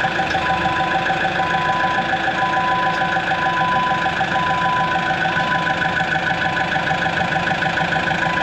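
Diesel engine of a Dressta TD-8H crawler dozer idling steadily with an even, fast pulse.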